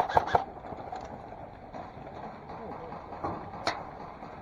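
Airsoft gun firing a fast string of shots that stops about half a second in, followed by quieter outdoor background and a single sharp snap near the end.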